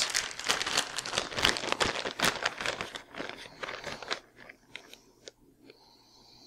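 Plastic bag of shredded cheddar cheese being opened and shaken out, rustling and crackling densely for about four seconds, then thinning to a few soft crackles.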